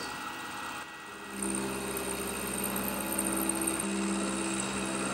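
PM-728VT milling machine's end mill cutting a slot in metal on a heavy pass, taking the last 100 thou in one go: a steady hum and high whine that starts about a second and a half in and shifts in pitch about four seconds in.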